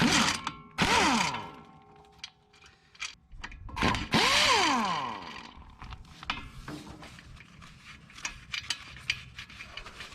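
Pneumatic impact wrench run in three short bursts on driveshaft bolts, each burst's whine falling in pitch as the air motor winds down, followed by light clicks and taps of metal.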